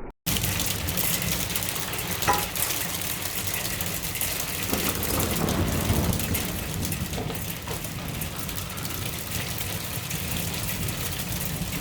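Hail and rain pelting down, a dense, steady patter of many small impacts.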